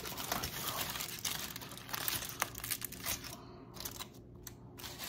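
Aluminium foil crinkling as a foil-wrapped burrito is handled: a run of light crackles, dense at first and thinning out after about three seconds.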